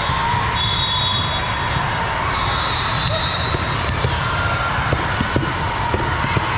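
Din of a busy volleyball tournament hall: steady background chatter, with sharp slaps and bounces of volleyballs that come more often in the second half.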